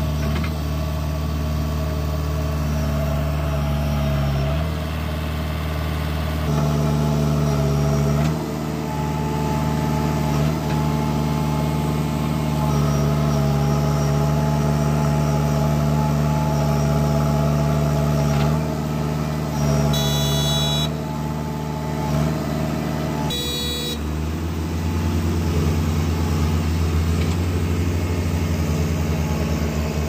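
Diesel engine of a JCB 3DX backhoe loader running under load as it digs and loads soil, its note shifting up and down as the hydraulics work, with two short high-pitched squeals a little past halfway. Near the end a lower, steadily throbbing diesel engine, the dump truck's, takes over.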